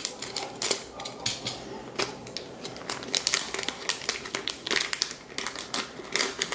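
Plastic LEGO Minifigures blind-bag packet crinkling and crackling in irregular rapid bursts as it is cut with a utility knife and pulled open by hand.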